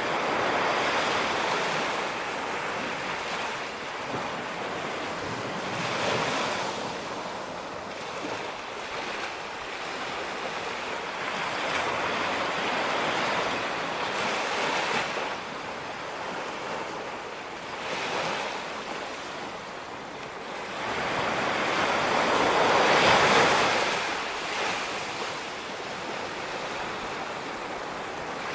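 Ocean waves breaking and washing up a beach, the surf swelling and easing every few seconds with the biggest wave about three-quarters of the way through, and a little wind on the microphone.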